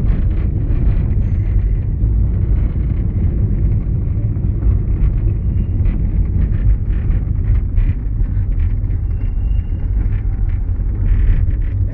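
Car driving through town, heard from inside the cabin: a steady low rumble of engine and tyres on the road.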